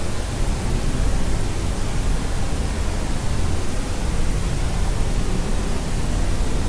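Steady white noise: a constant, even hiss with more weight in the low end, unchanging throughout.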